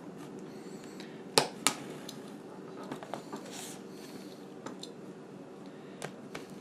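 Plastic retail packaging being cut open: two sharp snaps about a second and a half in, a few fainter clicks and a brief crackle of plastic, over a steady background hum.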